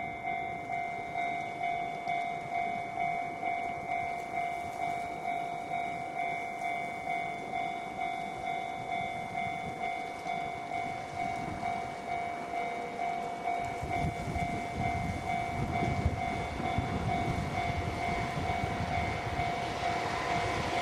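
Japanese level-crossing warning bell ringing in an even, repeating pulse. From about two-thirds in, the low rumble of an approaching freight train builds and grows louder.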